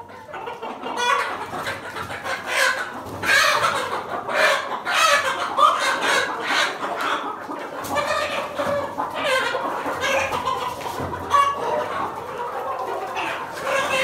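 A flock of Kadaknath chickens clucking and calling, many short overlapping calls, starting about a second in.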